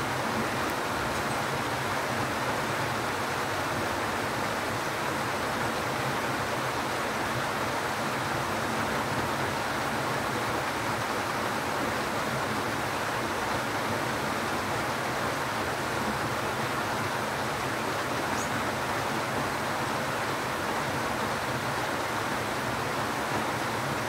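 Steady rain falling on garden foliage, an even hiss that does not let up.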